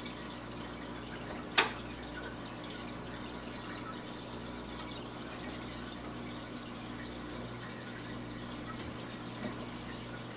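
Aquarium water running with a steady trickling wash and a low hum underneath. One sharp click about a second and a half in.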